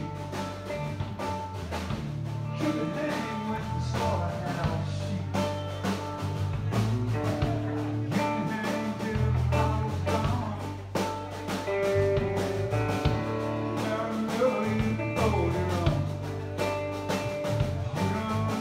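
A live band playing: electric guitar, electric bass and drums with a steady beat of drum hits.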